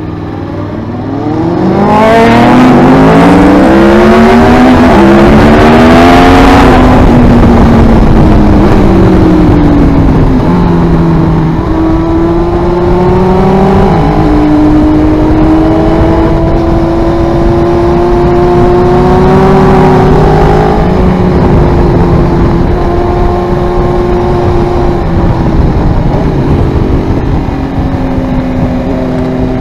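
Aprilia Tuono V4R's V4 engine, heard onboard while riding. The engine pitch climbs sharply under hard acceleration from about two seconds in, falls back after about seven seconds, then holds a steadier, lower pitch through the bends with a brief drop near twenty seconds.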